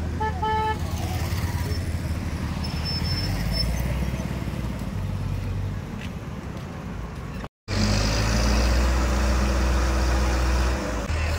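Steady low engine rumble of vehicles, with a short horn-like tone right at the start. After a brief dropout about two-thirds of the way through, a louder heavy engine runs steadily: the engine of the ACE 14XW mobile crane working at the overturned lorry.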